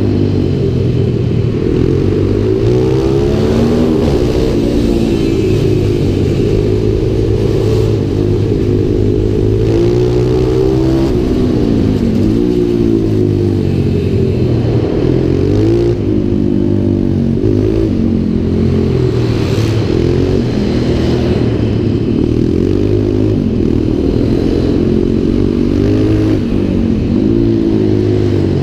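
Pit bike's 140 cc single-cylinder four-stroke engine, a Yinxiang YX140, heard onboard while riding, revving up and backing off every couple of seconds as the bike accelerates out of corners and slows into them.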